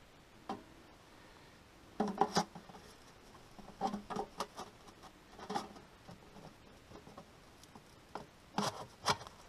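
Sections of a metal wood-stove chimney pipe being handled and slid together. Short scraping knocks and rubs come in clusters, the loudest about two seconds in and again near the end.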